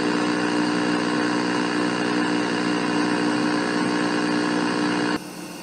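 A steady droning hum over hiss, which drops away sharply about five seconds in.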